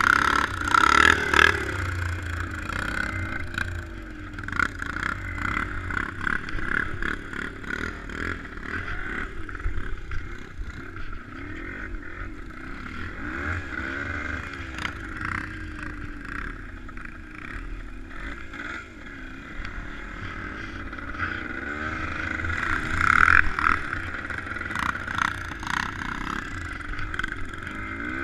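Vehicle engine running, its pitch wandering up and down as it speeds up and slows, with scattered clicks and scrapes.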